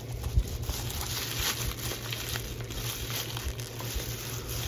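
Packaging being worked open by hand: continuous crinkling and rustling with small scattered clicks and one sharper click about half a second in, from a package that is hard to open.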